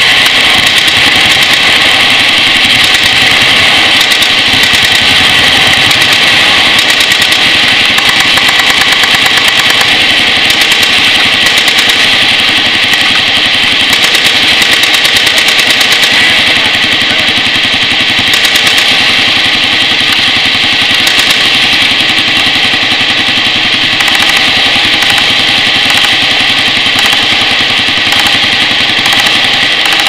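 Many machine guns firing at once in long automatic strings, the rapid shots blurring into one continuous, loud stream of gunfire that saturates the action camera's microphone.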